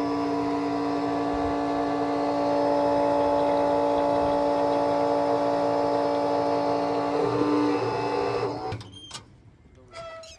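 Excavator's diesel engine and hydraulics running steadily with a pitched whine, cutting off abruptly near the end, followed by a few faint clicks.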